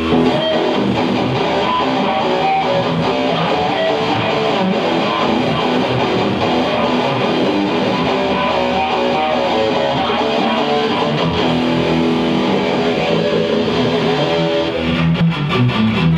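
Electric guitars and bass guitar played loud through amplifiers in a rock band's strummed, guitar-led passage.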